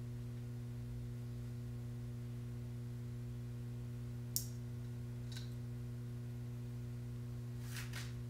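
Small parts of a RockShox Charger 2.1 damper's compression adjuster clicking as they are fitted together by hand over a steady low hum. There is a sharp click about four seconds in, a fainter one a second later, and a few quick clicks near the end.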